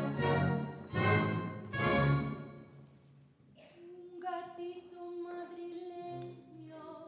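Orchestra playing zarzuela music: loud accented chords for the first couple of seconds, then a softer passage with a long held note.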